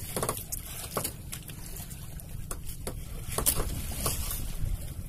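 Noise aboard a small outrigger fishing boat at sea: a low steady rumble with scattered light taps and patter.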